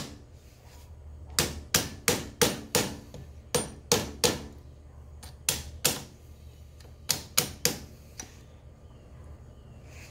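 Light ball-peen hammer taps on an old seal used as a driver, pushing a new front-wheel seal down onto a 1950 Farmall Cub's front spindle. The sharp taps come in short runs of three to six, about three a second, with pauses between runs.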